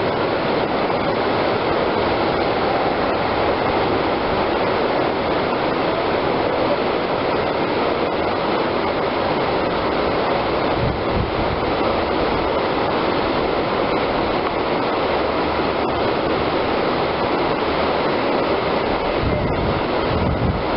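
Whitewater rapid rushing steadily, the continuous churn of a river's breaking wave.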